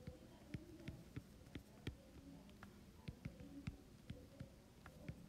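Faint, irregular taps and ticks of a stylus on an iPad's glass screen while handwriting, about two or three a second.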